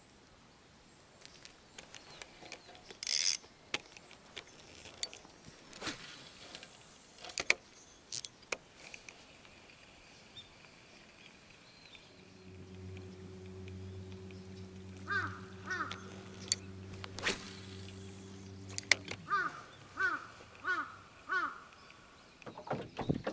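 Crows cawing in short repeated calls, four in quick succession near the end, over outdoor ambience with scattered clicks. A steady low hum runs under the calls through the middle of the stretch.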